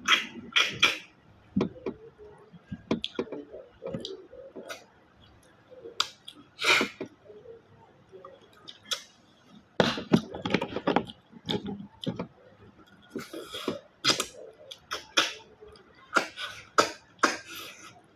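Sharp sucking slurps, one after another, as a person sucks freshwater snails in coconut-milk sauce out of their shells. There is a quieter stretch in the middle, then the slurps come thick again.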